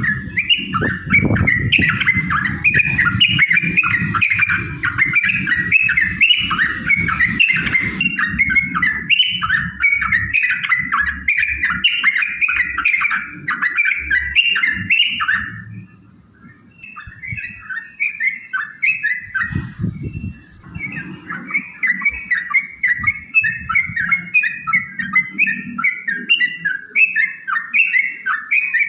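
Yellow-vented bulbuls (trucukan) singing a long, rapid run of chattering notes, several birds overlapping as if dueling. The song breaks off briefly a little past halfway, then resumes.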